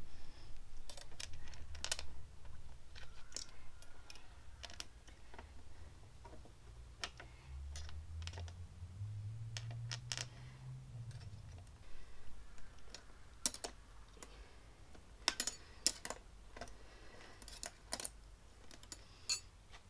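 Scattered metallic clicks and clinks of steel barrel springs, nuts and a spanner being worked onto a motorcycle seat pan. A low hum underneath rises in pitch around the middle.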